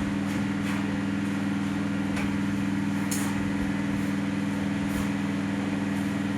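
Steady electrical hum with strong low tones, with a few faint clicks and a short high hiss about three seconds in.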